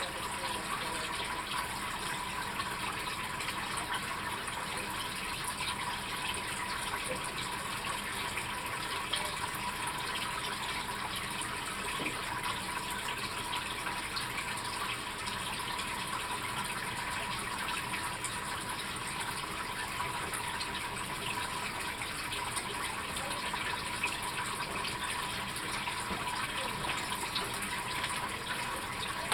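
Aquarium filter running: a steady rush and splash of water into the tank, with a thin steady tone under it.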